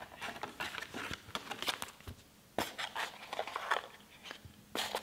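Cardboard and paper packaging of a first-generation iPod box being handled: irregular rustles, scrapes and light taps, with one louder rustle near the end.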